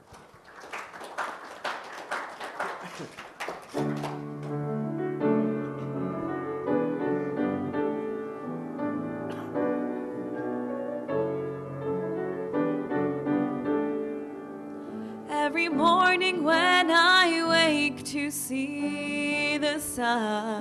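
Brief applause, then a solo piano starts the introduction to the next gospel song about four seconds in; a woman's voice comes in singing over the piano near the end.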